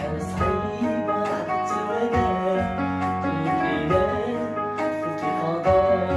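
Instrumental music with held melody notes over a bass line, without singing: a gap between sung lines of a rai love-song cover.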